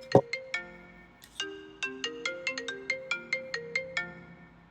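Mobile phone ringtone playing a repeating tune of short, ringing notes. A single sharp thump comes just after the start.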